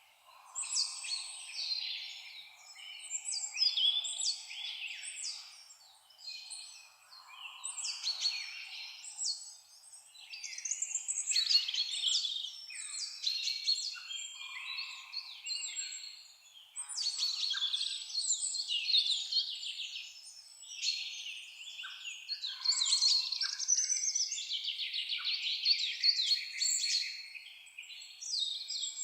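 Several songbirds singing and calling at once, a dense overlapping chorus of high chirps and rapid trills with brief gaps between phrases.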